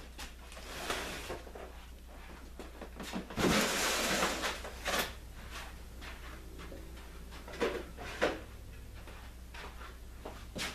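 Heavy cardboard box holding a benchtop planer handled and set down on a plywood tabletop: a deep thump and a scrape about three and a half seconds in, then a few lighter knocks against the box and table.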